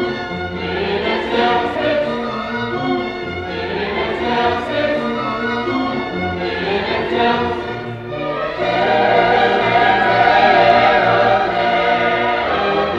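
Mixed choir of men's and women's voices singing together, growing louder about two-thirds of the way through.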